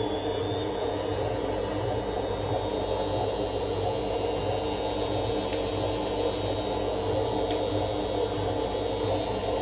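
AEG washing machine running with a rattling sound, which the owner treats as a fault: a steady low hum and rough rattling noise under a thin high motor whine that rises slightly in pitch over the first second and then holds steady.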